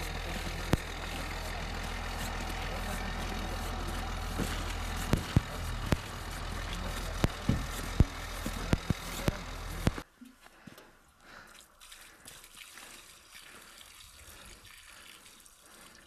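Steady outdoor hum and hiss with scattered sharp footsteps on a wet, slushy road. About ten seconds in it drops suddenly to a faint trickle of water running from a pipe spout.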